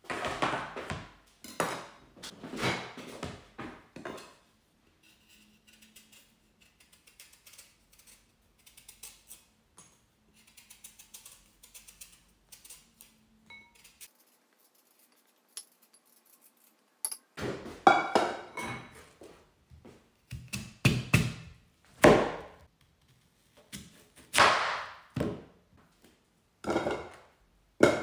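Food preparation with a knife on a plastic chopping board: a cluster of knocks as the board is set down on a stone worktop, faint scraping ticks while a sweet potato is peeled, then a run of uneven, sharp knocks as the knife cuts through it onto the board.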